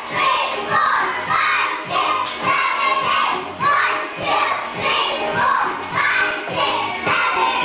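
Song with singing and a steady beat, about two beats a second, with young children's voices mixed in.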